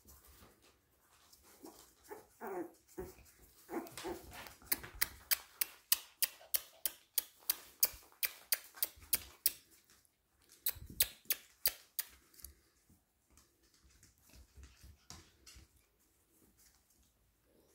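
A Yorkie whimpering and whining in rising and falling glides a few seconds in. This is followed by a run of sharp clicks, about three a second, for several seconds, and a shorter run again later.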